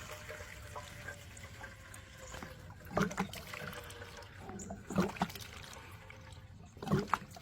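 Gasoline pouring from a can into a pressure washer's fuel tank, a steady trickle for about three seconds, followed by three sharp clunks about two seconds apart.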